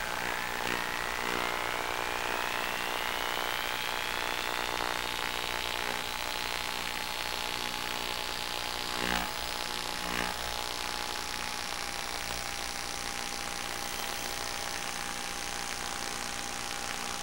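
Electric motor and propeller of an FPV model airplane running steadily at cruise, heard on board as an even hum with a high whine that slowly rises in pitch. Two short knocks come a little past halfway.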